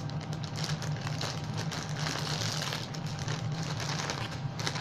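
Packaging being handled as a plush toy is taken out: irregular small clicks and soft rustles over a steady low hum.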